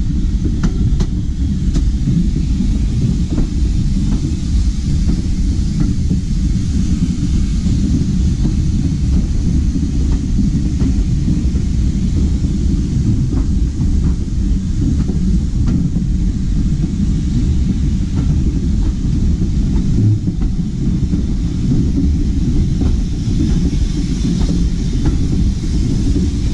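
Heritage railway train running along the line, heard from on board a carriage: a steady low rumble with occasional faint clicks from the wheels on the track.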